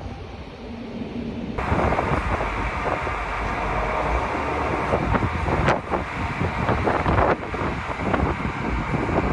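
Strong wind buffeting the microphone, a steady rushing noise that gusts up sharply about a second and a half in.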